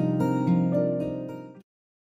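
Soft instrumental music with plucked notes, fading away and cutting to silence about one and a half seconds in.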